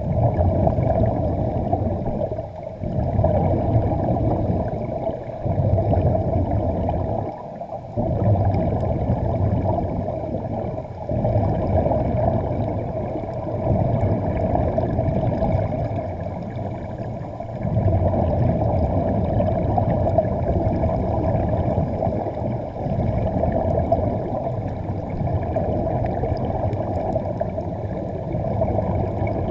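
Muffled underwater noise heard through a camera's underwater housing: a steady low rumble with bubbling, dipping briefly every few seconds.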